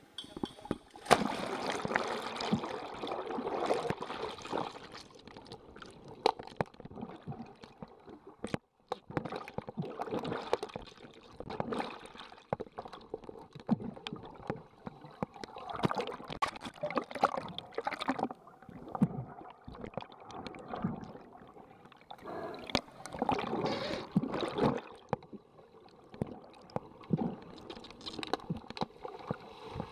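Water sloshing and gurgling, heard partly underwater, as underwater hockey players swim and dive. It is loudest just after the start and comes and goes in surges throughout, with frequent sharp clicks and knocks.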